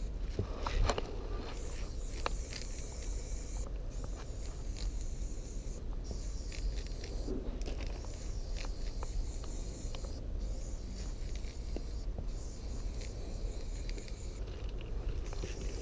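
Aerosol spray-paint can hissing in long strokes against a train's metal side, with several short breaks where the nozzle is let go.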